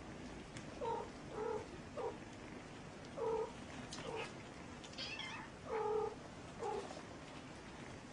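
Domestic cat meowing: a string of about eight short meows, one higher and thinner than the others about five seconds in.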